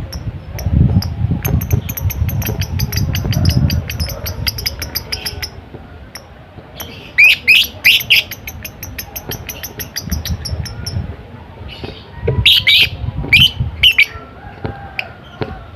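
Lovebird chattering in rapid runs of high-pitched ticking chirps, broken by loud shrill squawks about seven seconds in and again near the end.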